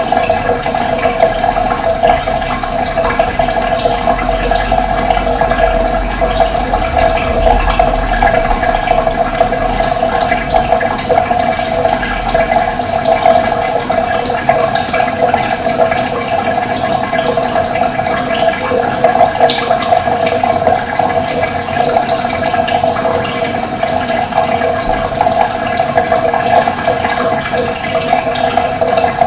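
Running water rushing steadily, with scattered short high chirps over it.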